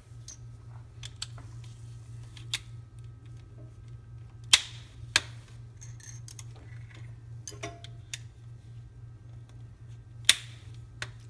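Small plastic mounting clips clicking and tapping against a stone countertop and a plastic LED light bar as they are handled, in a string of light, irregular clicks. The two sharpest come about four and a half seconds in and near the end. A low steady hum runs underneath.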